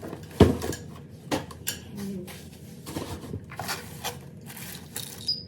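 Metal cookware knocking and clinking as it is handled, a string of separate knocks with the loudest about half a second in.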